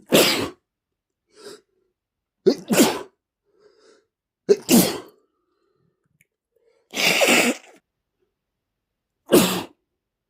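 A man sneezing five times in a row, about two seconds apart, with quick breaths drawn in between. Two of the sneezes come with a short catch just before the main burst.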